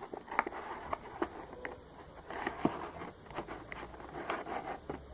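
Irregular crackling, clicks and light scraping of a small box and its plastic packaging being handled.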